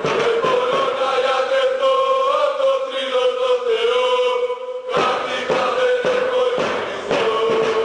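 A crowd of voices chanting a supporters' song in unison, holding long notes over regular beats; the sound cuts and comes back fuller about five seconds in.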